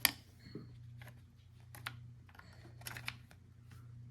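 Light clicks and taps of a laptop DDR4 RAM stick being handled and repositioned at its socket: one sharp click at the start, then a few softer ones spread through, over a faint low hum.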